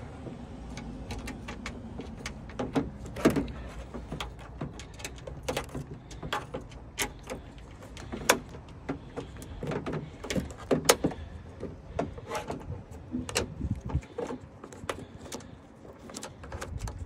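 Irregular small clicks and taps of metal hardware being handled and fitted at the wing mounts on the underside of a car trunk lid, while a bolt is set in place. A steady low rumble runs underneath and drops away near the end.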